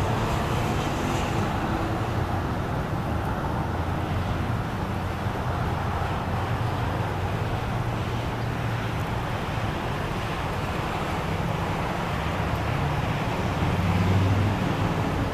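Steady expressway traffic noise: a continuous mix of car engines and tyre noise, with a low engine drone that swells briefly near the end.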